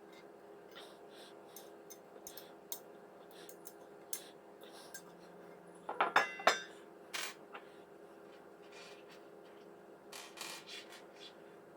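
Steel parts of an under-desk PC case holder being handled: scattered light clicks and rubbing, with a short burst of ringing metal clinks about six seconds in.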